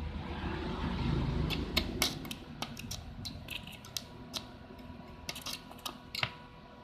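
Scattered sharp clicks and taps of test probes and hands working on an inverter welding machine, over a low hum that fades after the first couple of seconds and a faint steady tone.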